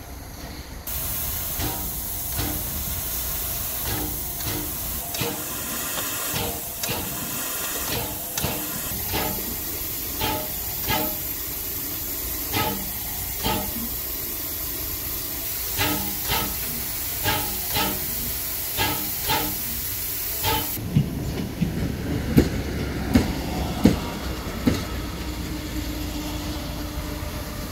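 Pt47 steam locomotive hissing steam from its open cylinder drain cocks, with irregular knocks and clanks over the hiss. About twenty seconds in the hiss stops, and a diesel railcar rumbles by on the next track with a few sharp clacks of wheels over rail joints.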